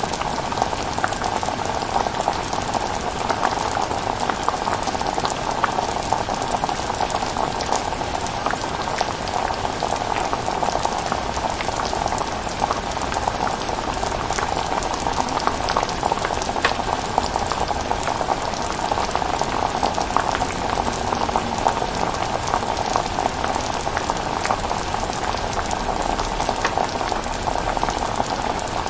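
Chilli cooking in a pan, bubbling steadily with many small pops.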